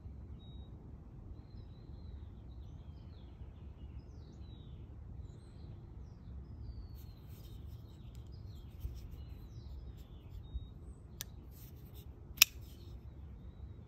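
Metal clicks from a folding knife being handled: a few faint clicks, then a sharper click and, near the end, one loud sharp snap of the blade. Birds chirp in the background over a low outdoor rumble.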